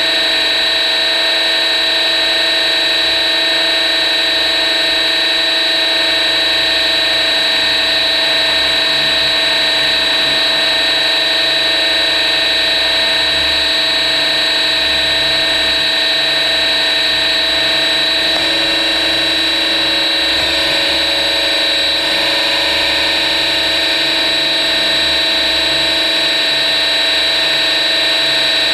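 Electric RC helicopter's motor, gears and rotor running with a steady, many-toned whine, close to the onboard camera. The pitch shifts slightly about two-thirds of the way through.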